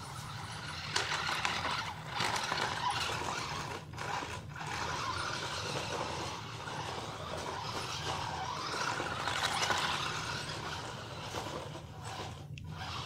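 Remote-controlled car's electric drive whirring and its tyres rolling on stone paving, rising and falling as it speeds up and slows. It cuts out briefly about four seconds in and again near the end.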